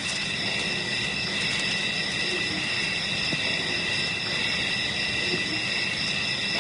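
Steady chorus of insects in the bush, several unbroken high drones at once over a low background hiss.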